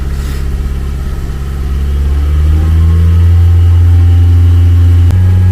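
Car engine idling, its speed rising gently about two seconds in and then holding steady. A single click comes near the end, with a slight change in the engine's tone.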